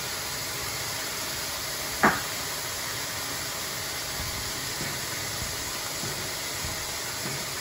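Diced onion, carrot, celery and pepper frying in olive oil in a pan, a steady sizzling hiss, with one sharp knock about two seconds in.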